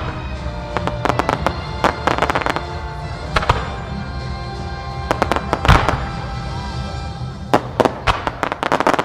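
Fireworks display: aerial shells bursting in a series of sharp bangs, the loudest boom about two-thirds of the way in, then a quick run of crackling bursts near the end. Music plays underneath and drops away as the crackling run begins.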